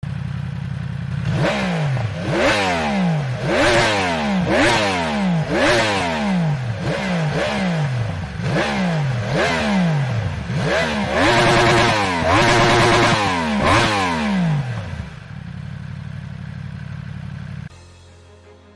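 Yamaha R1M's crossplane inline-four engine idling, then blipped in sharp revs about once a second, each falling straight back, with a longer held rev near the end before it settles back to idle.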